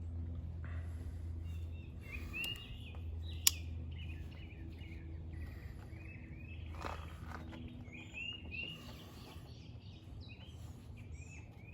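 Birds chirping in short repeated calls over a steady low hum, with one sharp click about three and a half seconds in.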